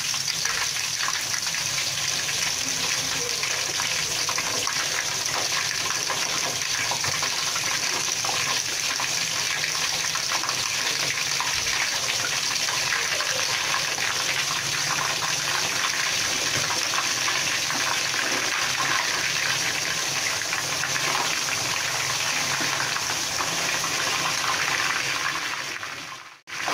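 Galangal-coated chicken pieces deep-frying at medium heat in a large stainless steel wok of oil: a steady, dense sizzle. It cuts out briefly near the end.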